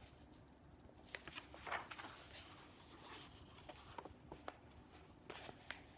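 Faint rustling and soft taps of a picture book's paper pages being handled and turned, against quiet room tone.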